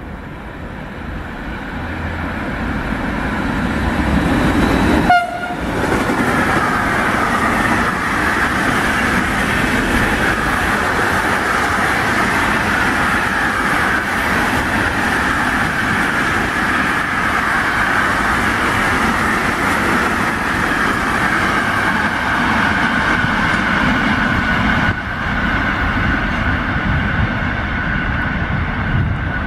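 A train approaching, its rolling noise growing louder over the first few seconds. After a brief break about five seconds in, a freight train of tank wagons passes close by with a steady rolling rumble and wheel clatter, and a steady high-pitched ringing of the wheels on the rails over it.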